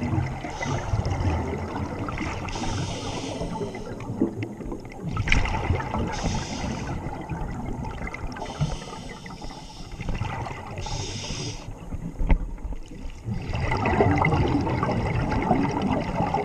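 Scuba diver breathing through a regulator underwater: a hiss on each breath in, then a bubbly rumble of exhaled air, repeating every few seconds.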